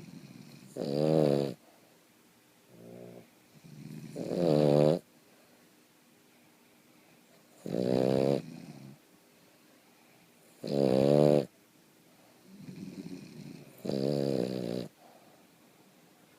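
Boston terrier snoring in its sleep: five loud snores about three seconds apart, each lasting under a second, with softer breaths between them.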